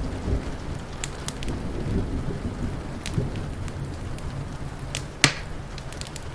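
Low rolling thunder rumbles under steady rain, while a crackling wood fire gives scattered sharp pops. One loud snap comes about five seconds in.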